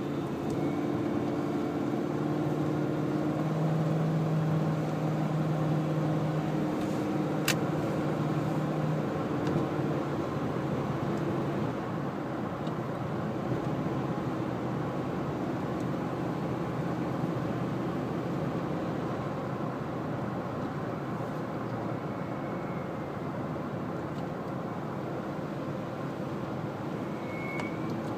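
1998 Ford Expedition's 4.6 L V8 running with an odd harmonic drone: several steady humming tones over the engine and road noise, strongest in the first ten seconds or so and then fading into a steady rumble. The owner suspects the newly installed belt tensioner. One sharp click about seven seconds in.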